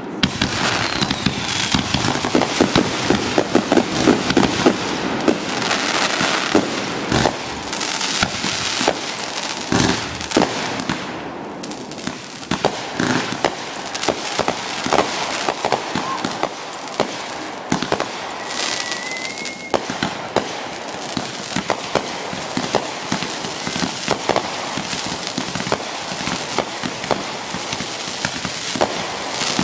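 Fireworks display going off in a rapid, continuous barrage of bangs and pops with crackling throughout. A brief rising whistle comes about two-thirds of the way through.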